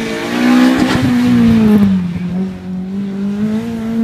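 Rally car engine driven hard past the spectator, its note rising and then dropping about two seconds in before holding steady.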